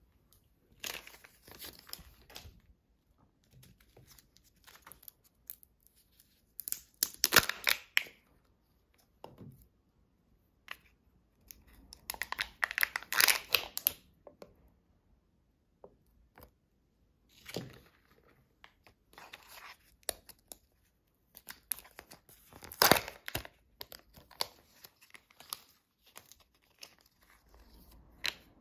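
Kinder Joy egg being unwrapped by hand: its plastic shell, foil seal, toy capsule and the toy's plastic wrapper being torn and crinkled. The sound comes in several short bursts of tearing and crinkling with quiet gaps between; the loudest are about 7 s, 13 s and 23 s in.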